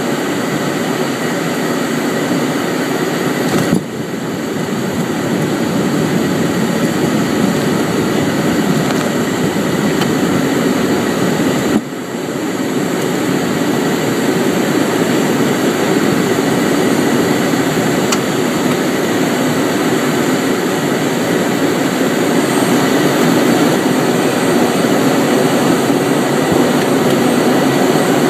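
Cessna Citation Ultra's twin Pratt & Whitney JT15D turbofans and airflow heard from the cockpit during the landing rollout, a steady loud rush with a faint high whine. Two sharp clicks come about four seconds in and again about eight seconds later, each followed by a brief dip, and the noise grows slightly louder after the second.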